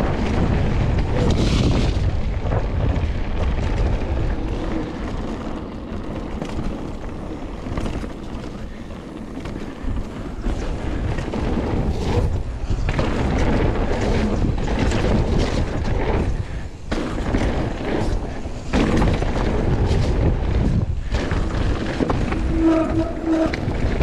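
Rock Machine Blizzard mountain bike riding fast down a dirt trail: wind rumbling on the action camera's microphone, with tyres crunching over the ground and the bike rattling and knocking over bumps and roots.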